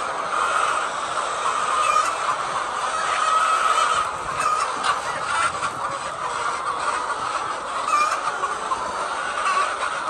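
A large flock of laying hens calling over one another in a dense, steady din.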